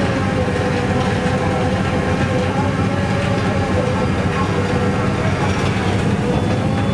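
SANY SR150C rotary drilling rig running steadily under load as it draws the auger up out of the bored-pile hole. A deep engine rumble runs under a slightly wavering whine.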